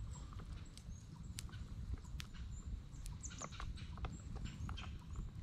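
Small wood campfire crackling, with sharp pops at irregular intervals over a low steady rumble.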